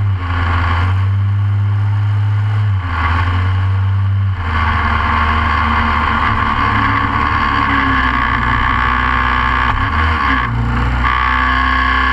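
Short course kart's Briggs & Stratton engine running at steady speeds. Its pitch steps up or down a few times.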